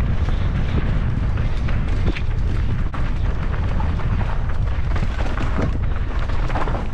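Mountain bike riding down a dirt trail: a steady low rumble of wind on the microphone, with frequent short knocks and rattles as the bike goes over bumps.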